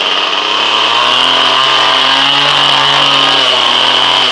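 Craftsman gas string trimmer's small engine running fast and steady on a cold start, with a high whine over the engine note; it has started readily after sitting since October.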